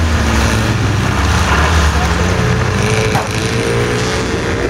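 Off-road 4x4's engine running steadily, joined over the last two seconds by a whine that climbs slightly in pitch.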